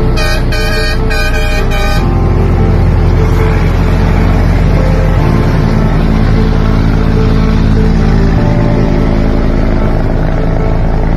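Truck air horn blowing a quick series of short blasts over the first two seconds, then a heavy truck's diesel engine running with a steady low drone.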